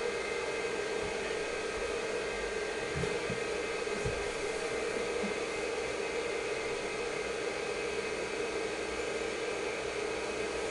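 IBM PC XT 5160 running: the power-supply fan's steady whir together with the hum and faint whine of the spinning MFM hard drive, which to the owner sounds kind of okay. A few faint knocks come about three to four seconds in.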